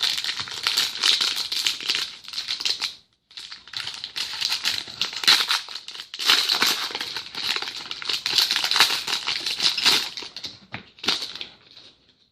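A trading-card pack wrapper being torn open and crinkled by hand, without scissors: dense crackling in bursts, with short breaks about three and six seconds in.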